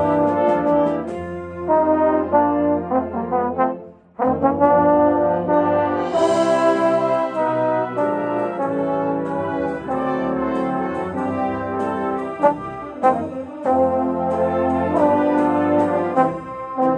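A band with brass plays a Christmas arrangement, the trombone loudest and close up, over a regular high ticking. The music stops briefly just before four seconds in and the whole band comes back in together.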